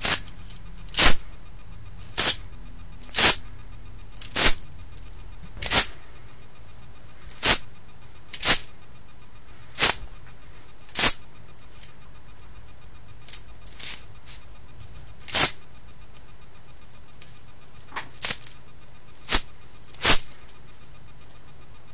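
A homemade retractable metal claw blade sliding out and snapping back along its rails as the arm is flicked, giving a short, sharp, hissing scrape about once a second, around fifteen times with a few pauses.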